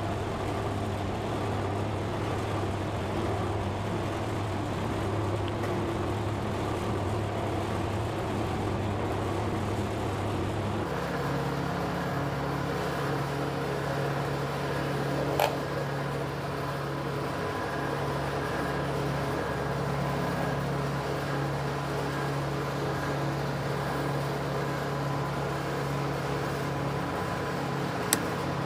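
Soap plodder's electric motor and screw running steadily as it extrudes soap noodles through a mesh screen. The hum steps up to a higher pitch about eleven seconds in, and there is one sharp click a few seconds later.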